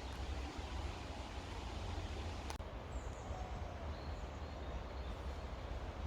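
Outdoor ambience: a low rumble of wind on the microphone, with a few faint high chirps and one sharp click about two and a half seconds in.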